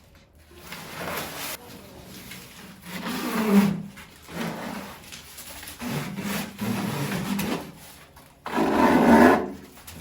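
A series of about five rubbing strokes, each lasting about a second, the loudest near the end.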